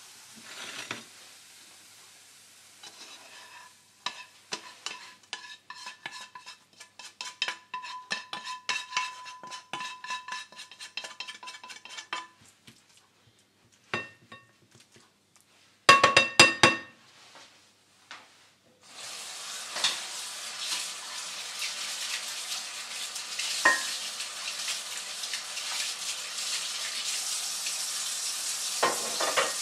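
Plastic slotted spatula scraping scrambled eggs and tomatoes out of a nonstick frying pan: many quick scrapes that make the pan ring, then a few loud knocks of spatula on pan. From about two-thirds of the way in, a steady rush of running water.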